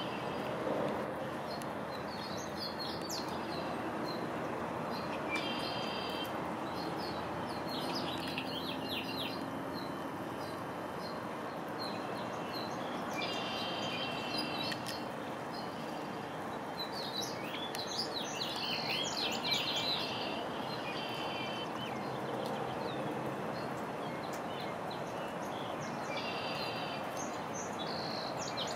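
Songbirds calling every few seconds in short, high chirps and phrases, busiest about two-thirds of the way through, over a steady hiss of rain.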